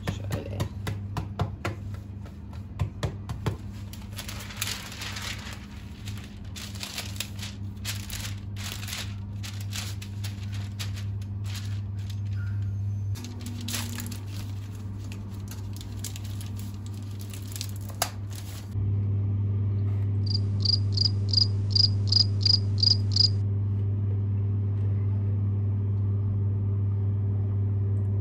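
Light clatter of kitchen utensils and dishes being handled, scattered clicks and knocks. Then a steady appliance hum, and about ten quick, evenly spaced electronic beeps from a kitchen appliance's control panel.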